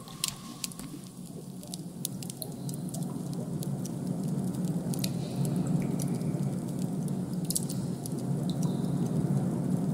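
Designed ambient background soundscape: a low, noisy drone that grows louder over the first few seconds, with scattered small clicks and drip-like ticks over it.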